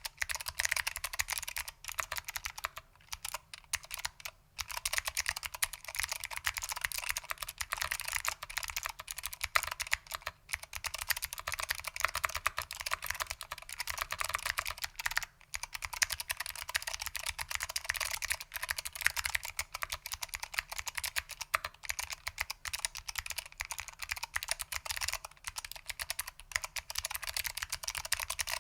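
Continuous fast typing on a Lunar AEK 65 keyboard with foam-damped SKCM Blue Alps switches, clicky and tactile, under ABS keycaps. Dense, rapid key clicks with a few brief pauses.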